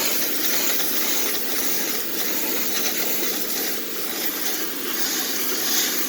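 Electric pressure washer running, a steady hiss of water spray over the hum of its motor, as it washes down a Craftsman riding mower.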